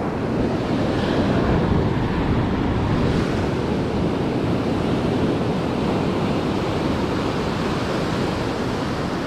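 Ocean surf washing steadily against the rocky shore, swelling about a second in, with wind rumbling on the microphone.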